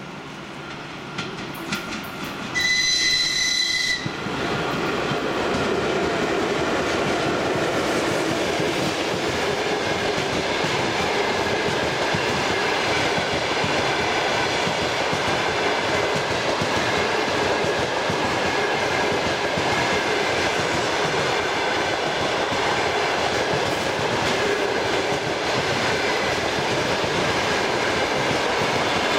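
A ChS7 electric locomotive sounds one high-pitched whistle blast of about a second and a half as it approaches. The locomotive and its long train of passenger coaches then run close past, making a loud, steady rumble of wheels on the rails.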